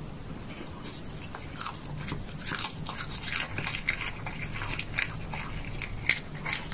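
A cat biting and chewing a whole cooked shrimp, shell on, close to the microphone: irregular crunches and wet clicks that start about a second and a half in and grow busier, the loudest crunch near the end.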